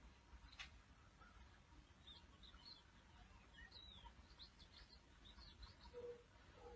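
Faint small-bird chirps, a run of short quick notes from about two seconds in, over near-quiet outdoor background, with a single click about half a second in.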